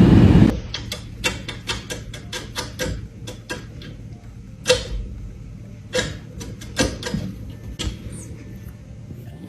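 A loud rushing noise cuts off about half a second in. Then comes a run of irregular sharp clicks and taps, with a few louder knocks in the middle of the run.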